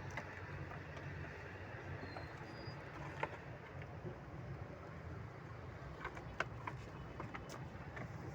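Sheep eating feed from the ground, with scattered soft clicks and crunches over a steady low hum. Two brief high bird chirps come a little after two seconds in.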